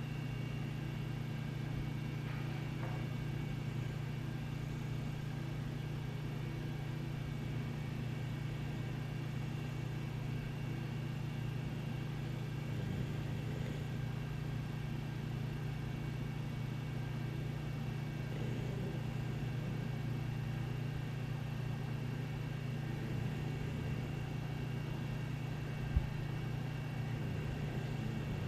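Steady low hum of household room tone, with a few faint steady higher tones above it. One short click near the end.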